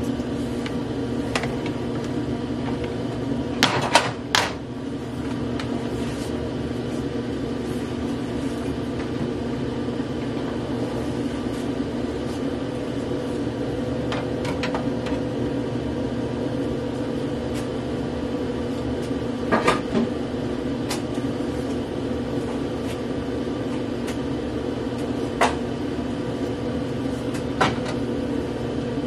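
A steady low hum under a few short knocks and clacks as kitchen items, a food processor and a bowl, are handled and set down on a gas stovetop. The loudest pair of knocks comes about four seconds in.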